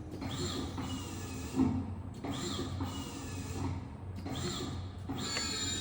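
Stierli-Bieger CNC horizontal press brake running through repeated bending cycles: motor whines that rise and fall about three times, with a short thump about a second and a half in.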